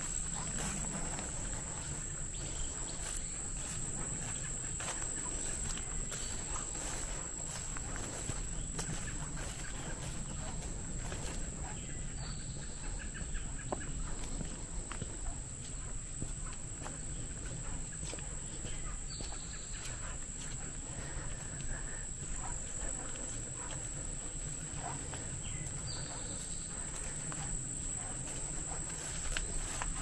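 Steady, high-pitched insect chorus in summer woodland, with footsteps swishing through tall grass and a low rumble underneath. A faint brief call sounds three times, about seven seconds apart.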